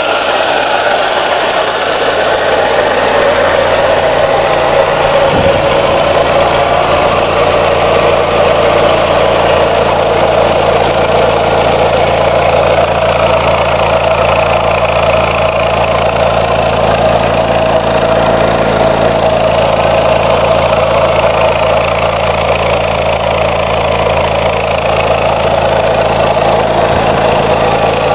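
An engine running at a steady idle, its even hum holding the same pitch and level throughout.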